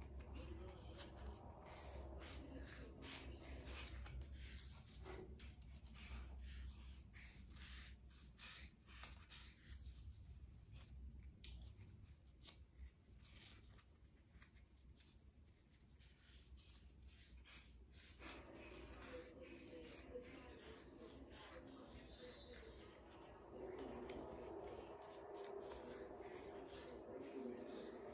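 Faint, irregular rustling and scratching of yarn being wrapped by hand around a card heart template and rubbing over its edges.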